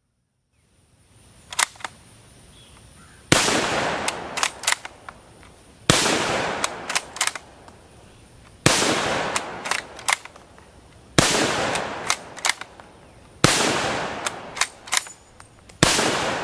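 Carcano M41 bolt-action rifle in 6.5×52mm Carcano fired six times, about two and a half seconds apart. Each shot rings off in a short echo, followed by quick metallic clacks of the bolt being worked to chamber the next round. A couple of bolt clicks come before the first shot.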